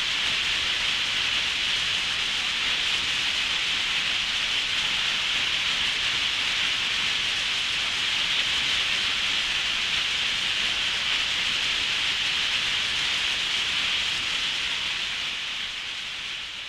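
Steady, even hiss of falling rain, fading out over the last few seconds.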